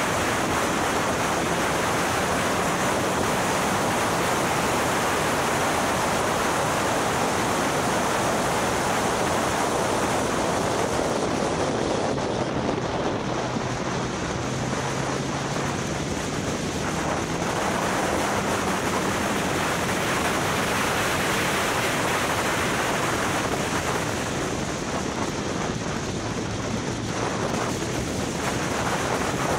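Heavy wind rushing over an onboard camera's microphone as the R300 track car laps at speed. The engine note is faint underneath, its pitch drifting up and down with the revs.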